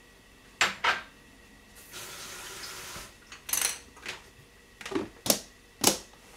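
A Lock & Lock plastic food container being shut: a couple of sharp clicks, a brief rush like running water, then a series of sharp snaps as the clip-lock lid's flaps are pressed down.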